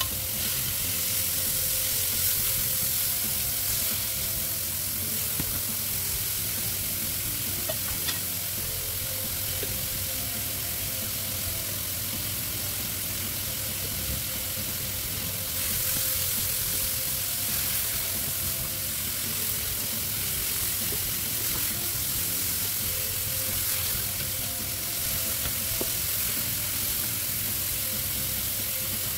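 Chopped onion with green and red bell peppers frying in oil in a pan, sizzling steadily.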